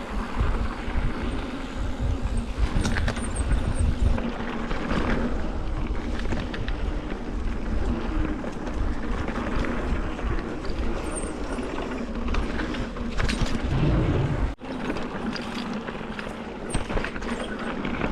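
Mountain bike riding down a dirt trail: wind buffets the rider's camera microphone over the rolling noise of the tyres, with scattered rattles and ticks from the bike. The sound drops out for a moment near the end.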